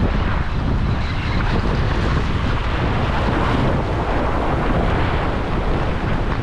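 Wind buffeting the microphone with a steady low rumble, over waves washing against the jetty's rocks.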